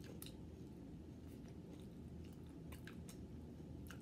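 Crisp waffle cone being bitten and chewed, a few faint, sharp crunches spread over the few seconds, with a low steady hum behind.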